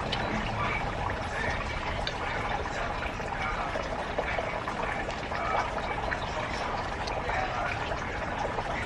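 Steady trickle of running water with faint light clicks.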